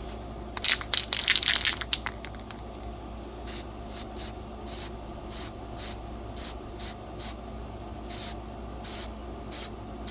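Aerosol spray-paint can: a quick run of rattling clicks, then about a dozen short hissing bursts of spray, one every half second or so, as the paint is dusted onto a small socket.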